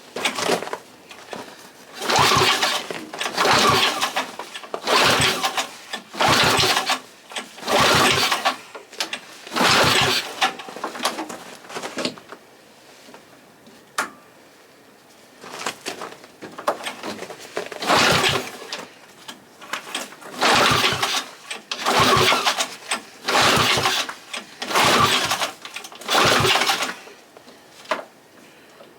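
Small Tecumseh H35 single-cylinder engine being pull-started over and over, each pull of the recoil cord cranking it briefly without it catching. There are about fifteen pulls, roughly one every second and a half, with a pause of a few seconds midway. The owner suspects the engine is not getting fuel.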